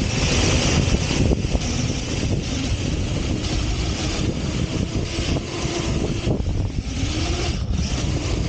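Radio-controlled off-road truck driving over sand, heard from a camera mounted on it: a steady rush of wind over the microphone and tyres churning sand, with a faint motor whine rising and falling in the second half.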